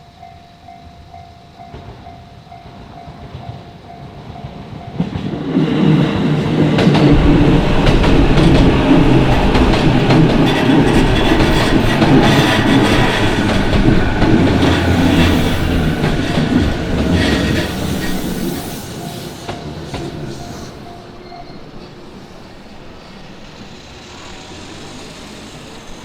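Electric train passing over a railway level crossing: it builds about five seconds in, clatters past loudly for about ten seconds, then fades. A steady ringing, the crossing's warning bell, is heard before the train arrives and again as it moves away.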